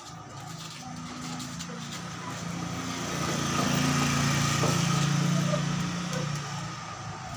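An engine running with a low hum, growing louder through the middle and easing off near the end.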